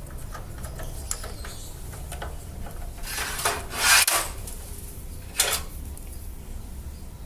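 Hard objects being handled: the computer power supply units being moved about, with small clicks and knocks and a loud scraping rub about three to four seconds in, and a shorter scrape a little later.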